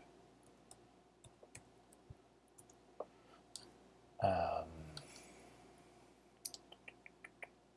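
Computer keyboard keys clicking as a clip name is typed: scattered keystrokes, then a quick run of about six near the end. About four seconds in, a brief low voice sound from the typist, lasting well under a second, is the loudest thing.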